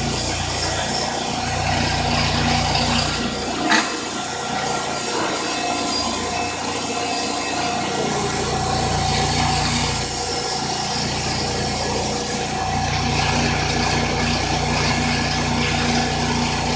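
Bench grinder running, with a steady motor hum under a continuous scraping hiss as a rusty metal part is pressed against its polishing wheel to strip the rust. There is a short knock about four seconds in.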